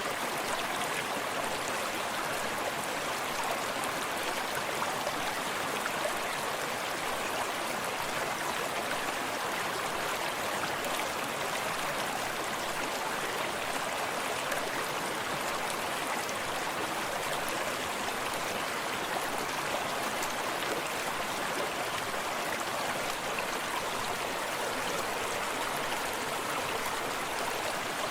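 A small forest stream flowing steadily, water burbling and lapping over rocks in an even, unbroken rush.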